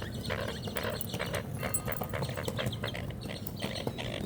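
American coots on the water calling, a run of short, irregular clucking calls, the squabbling that comes before a coot fight.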